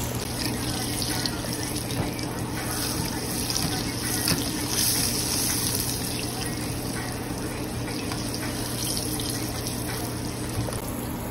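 Breaded oysters deep-frying in vegetable oil in a saucepan, with a steady sizzle and bubbling and a few light clinks of a wire spider skimmer against the pan. A steady low hum runs underneath.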